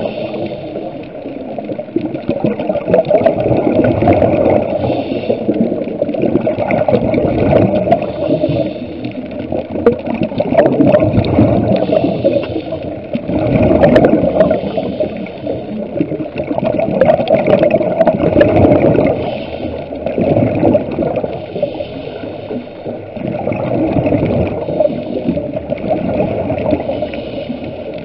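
Scuba diver breathing through a regulator underwater: exhaled bubbles gurgling and rushing in swells every three to four seconds.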